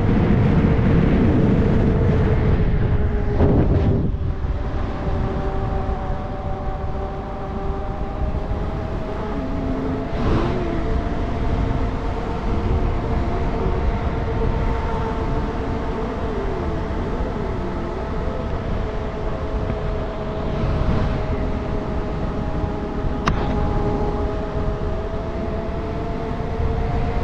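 A 72-volt e-bike's 12 kW hub motor whining steadily while riding, its pitch drifting slightly with speed. Under it is wind rumble on the microphone, strongest in the first few seconds.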